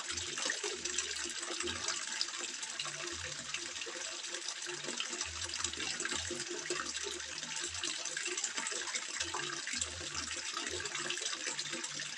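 Water trickling and splashing steadily into a koi pond, an even, continuous rush.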